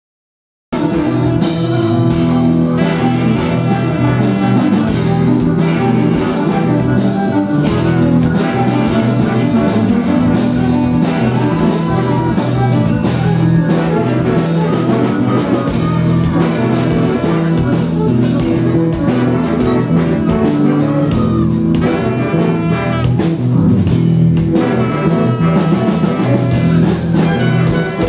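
Live rock band playing loud, with electric guitar, bass, drums and trumpet; the music cuts in abruptly under a second in.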